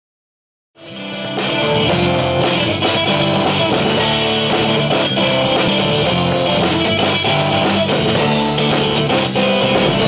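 Rock music with guitars over a drum kit keeping a steady beat, fading in quickly after a moment of silence about a second in.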